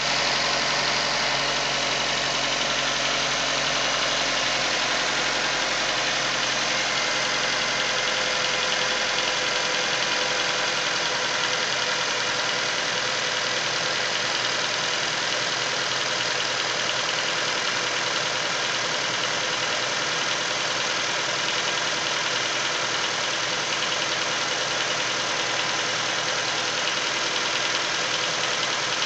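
Nissan Versa's four-cylinder engine running steadily with a tapping engine knock.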